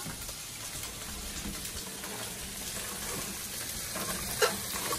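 Steady hiss of food cooking on a stovetop, with one sharp clink about four and a half seconds in.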